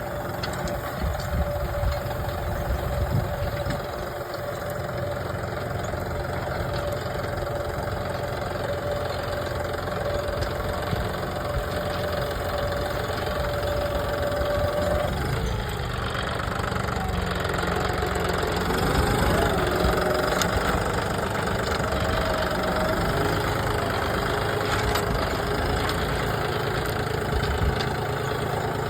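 John Deere 5210 GearPro tractor's three-cylinder diesel engine running steadily; about halfway through, its pitch shifts up and down as the engine speed changes.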